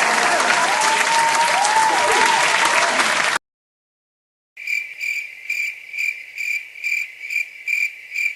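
Stock sound effect of a crowd applauding, with whistles gliding over the clapping, cutting off about three seconds in. After a second of silence comes a cricket-chirping effect: a steady run of short, high, evenly spaced chirps, about two to three a second, the stock cue for awkward silence.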